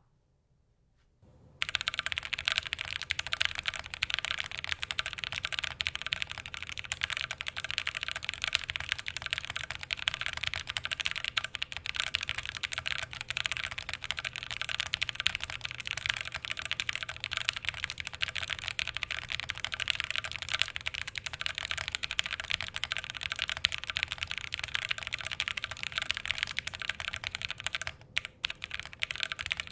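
Continuous fast typing on a Bear65 v2 Alice-layout custom mechanical keyboard with Purple Cow switches on a polycarbonate plate and GMK keycaps, its PCB cuts taped over. The keystrokes have a hollow sound. The typing starts about a second and a half in and thins to a few scattered strokes near the end.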